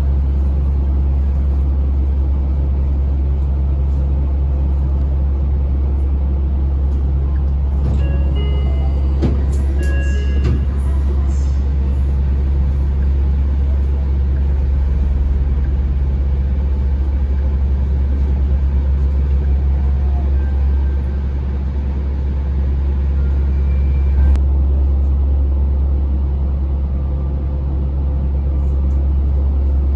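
Interior running noise of a Yui Rail rubber-tyred straddle-beam monorail car in motion: a steady low hum with even rolling noise above it. A few brief high tones sound about eight to eleven seconds in.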